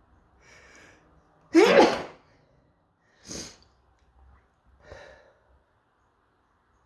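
A sneeze: a soft breath in, then one loud sneeze with a falling voiced note about a second and a half in, followed by two shorter, quieter bursts.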